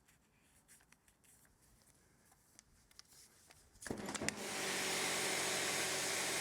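A few faint clicks in near silence. Then, about four seconds in, an AVA Evolution P80 pressure washer kicks in: the 2,800-watt induction motor and pump hum steadily under an even hiss of water jetting from the Vario nozzle, now on its 60-degree spray.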